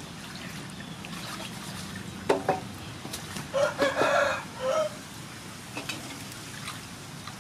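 A rooster crowing once, about three and a half seconds in, followed by a short second call. Two short sharp sounds come just before it.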